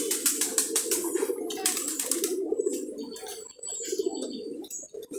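Many domestic pigeons cooing together in a steady low murmur, with frequent sharp clicks and taps over it.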